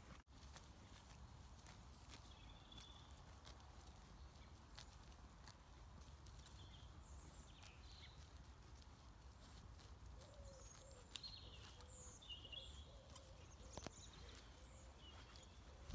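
Near silence: faint outdoor ambience with a low rumble and scattered short bird chirps, more of them in the second half.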